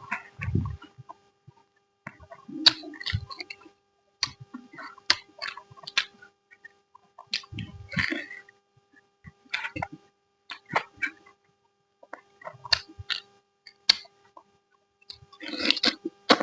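Close-miked chewing and lip-smacking while eating a curry meal. The sound comes as short clusters of wet clicks and smacks every second or two, with silent gaps between them.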